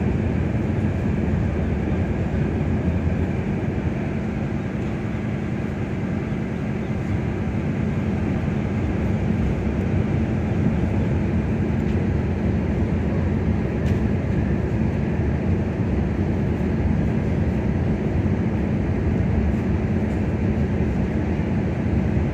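Ferry's diesel engines running with a steady low rumble as the ship manoeuvres to berth.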